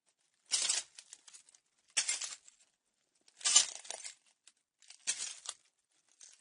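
Slow footsteps crunching on broken glass: four steps about a second and a half apart, each a short grinding crunch with glass clinking. The third step is the loudest.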